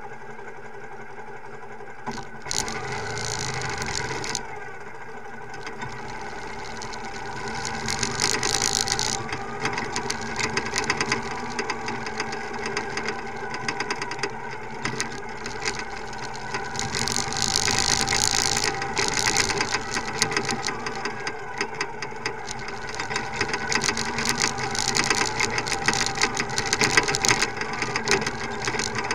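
Motorcycle engine running at low speed, with a steady hum and constant rattling as the bike rolls over rough grass.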